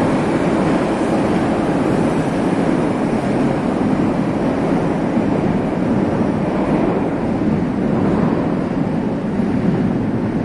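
Steady, loud rumbling noise in a metro station hall, mostly low-pitched, with no single tone or event standing out; it eases a little past the middle.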